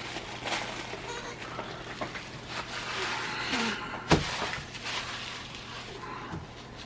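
Rustling and handling of a toy blaster's packaging and foam darts, with one sharp knock about four seconds in.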